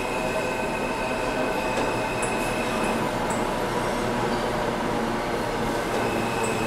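New York City Subway train rolling along the express track of an underground station: a steady rumble of wheels on rail, with a thin high wheel squeal that fades out in the middle and returns near the end, and a few sharp metallic ticks.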